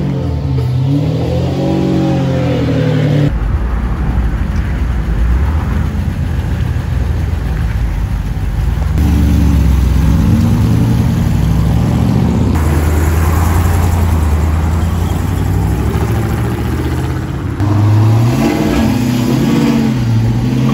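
Collector cars pulling away one after another, engines revving up and easing off in short clips joined by abrupt cuts. The cars are a Ferrari Testarossa's flat-twelve, then a Chevrolet Impala, then an Oldsmobile.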